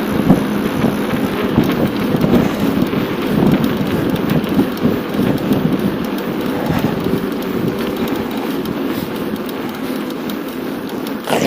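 Wind rushing over the microphone and bicycle tyre noise while riding along a paved track: a loud, steady, rough noise. A sharp knock comes near the end.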